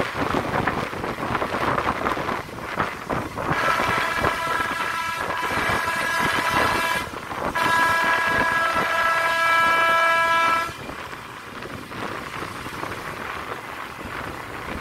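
Wind and road noise from a motorcycle ride on a wet road, then a vehicle horn sounds two long, steady blasts. The first starts about three and a half seconds in, the second follows after a brief break and stops about eleven seconds in.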